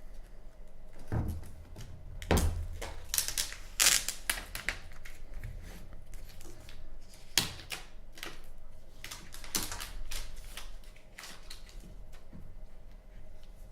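An iPad and its cardboard box being handled as the tablet is lifted out: an irregular string of clicks, taps and rustles, with the loudest knocks about two to four seconds in and again about seven seconds in.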